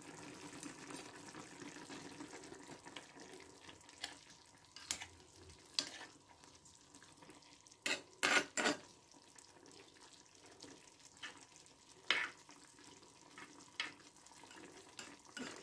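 Meat and onion stew simmering in a clay tagine, with a faint steady sizzle, while a spoon stirs it and knocks sharply against the clay dish now and then, a dozen or so separate clicks.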